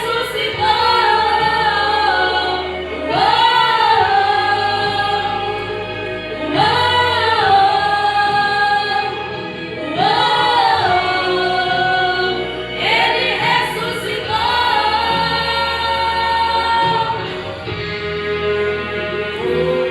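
Gospel song with a choir and female voices singing long held phrases, a new phrase swelling in about every three seconds over a steady instrumental backing.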